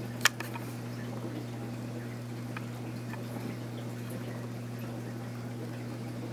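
An aquarium's running equipment: a steady low electrical hum with water bubbling and trickling. A single sharp click comes right at the start.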